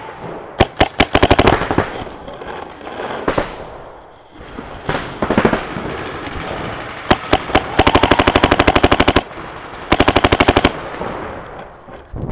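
A gun firing in rapid full-auto bursts, about fourteen shots a second: a few single shots and a short burst about a second in, then a long burst about eight seconds in and a shorter one about ten seconds in.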